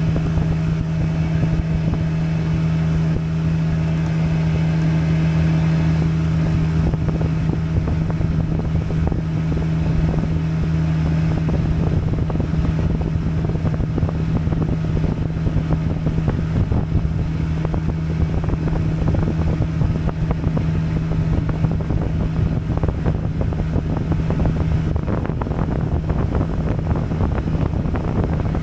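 Small fishing boat's motor running at a steady speed, a constant hum with wind noise on the microphone.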